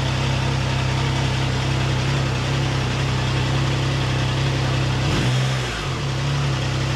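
Triumph Tiger Sport 660 motorcycle's three-cylinder engine idling steadily, with a brief dip and recovery in its pitch about five seconds in.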